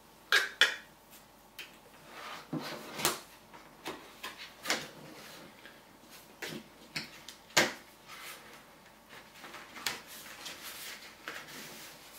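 Paperboard packaging of an Apple Watch sport band being opened and handled: irregular rustling and sliding of card with scattered sharp taps and knocks, the sharpest a little past halfway.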